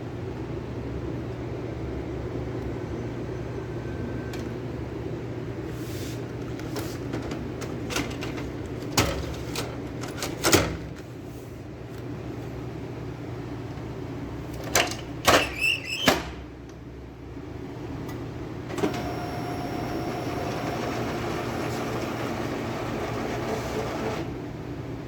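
HP LaserJet M603 laser printer running with a steady mechanical hum. There are sharp clacks about nine and ten seconds in and a quick cluster of them around fifteen to sixteen seconds. From about nineteen seconds until near the end a steady whine runs over the hum.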